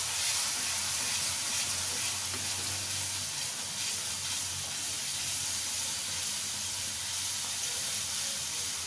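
Hot ghee-roasted whole wheat flour sizzling and steaming steadily as sugar syrup is poured in slowly and stirred with a wooden spatula.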